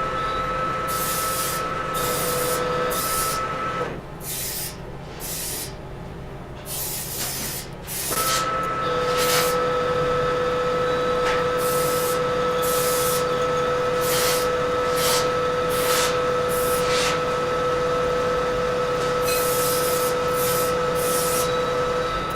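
Metal lathe turning a steel shaft: a steady whine from the machine with an irregular rasping, crackling cutting noise over it. The whine stops about four seconds in and starts again about four seconds later, then runs on steadily.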